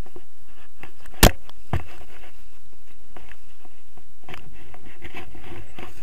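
Handling noise on a pole-mounted action camera during a paraglider launch: scattered clicks and knocks, with one sharp knock about a second in. From about four seconds in, a low rumble of wind on the microphone and rustling as the camera swings.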